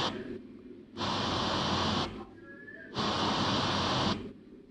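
FM radio hissing with the static between stations while being tuned by hand: about three even bursts of hiss, each a second or so long, separated by short quieter gaps as the tuner steps from one empty frequency to the next.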